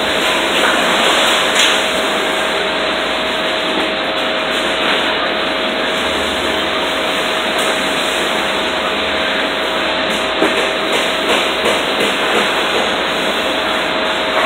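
Steady machine noise: a constant hiss with a single steady whine, with a few faint ticks and knocks over it.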